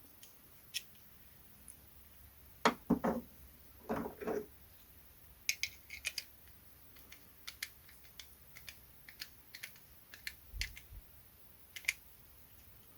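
Scattered small clicks and taps of a washer and nylock nut being fitted onto a bolt and tightened, with a few fuller knocks about three and four seconds in.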